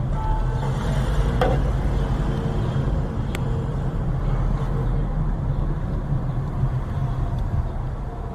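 Steady low engine and road rumble heard inside a car driving slowly, with one short sharp click about three seconds in.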